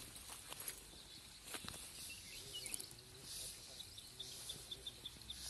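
Quiet outdoor ambience: a quick, even run of about ten short high chirps a little past halfway, over faint distant voices and a couple of light scuffs about one and a half seconds in.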